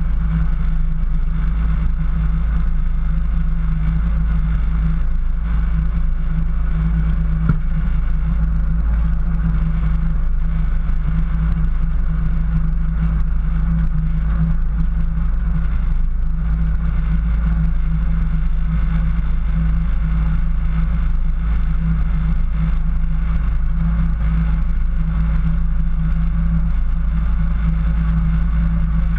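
Jeep engine running at a steady low pace while driving through snow, a constant low drone with no revving. One brief click about seven seconds in.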